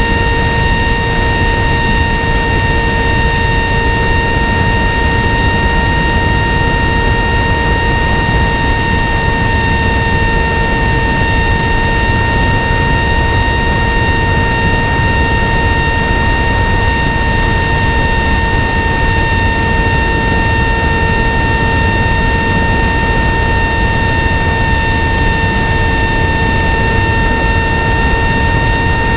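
Electric motor and propeller of an FPV flying wing at steady throttle, heard through the onboard camera: a constant whine that holds its pitch, over heavy wind rush on the microphone.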